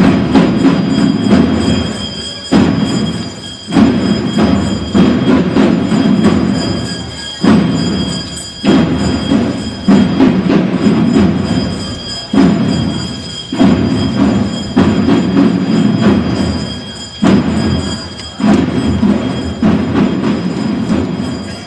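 Procession drums played with their snares off, giving a dull, muffled beat. They keep a slow, steady march rhythm of about one stroke every second and a quarter, with short breaks in a pattern that repeats about every five seconds.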